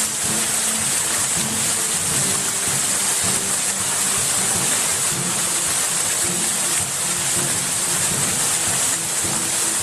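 Steady, dense hiss of rushing water, strongest in the high range, with faint broken low tones underneath.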